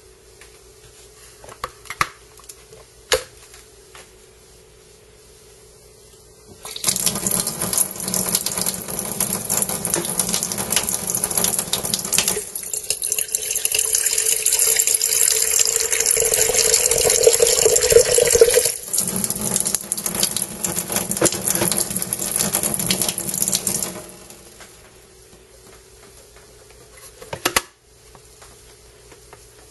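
Water running from a kitchen tap into a plastic electric kettle, a steady splashing rush lasting about seventeen seconds. A few light clicks come before it and a sharp click near the end.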